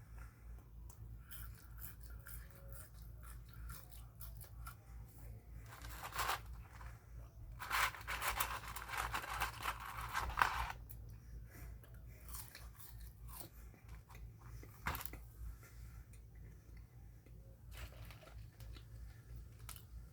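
A person chewing food with crunching, loudest in a dense stretch of crunches from about eight to eleven seconds in, with quieter scattered chewing clicks around it.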